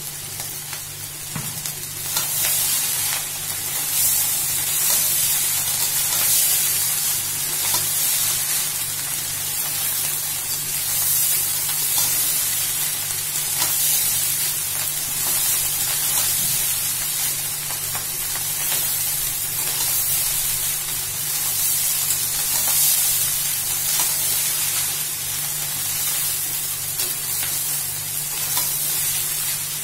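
Fried rice sizzling in a metal pan as a metal spatula turns and tosses it, the sizzle rising and easing with the strokes. A steady low hum runs underneath.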